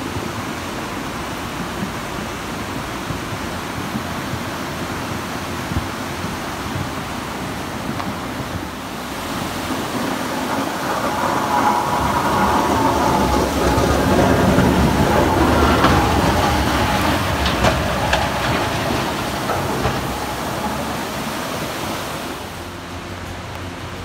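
Muddy, flood-swollen mountain river rushing: a steady, dense rush of water that grows louder for about ten seconds in the middle, then eases near the end.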